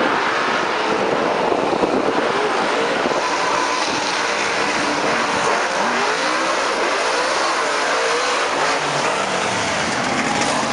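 Monster truck engines revving hard under full throttle as two trucks race up a steep dirt hill-climb, the engine pitch rising and falling repeatedly.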